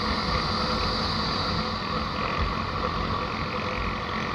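Motorcycle running steadily along a road, its engine mixed with a steady rush of wind and road noise.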